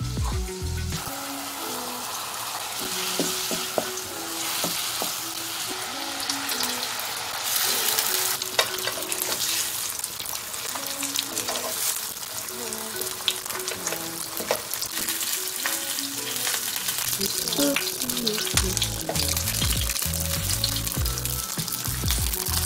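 Battered fish fillets sizzling as they pan-fry in hot oil, with scattered clicks and scrapes from a wooden spatula turning them in the pan.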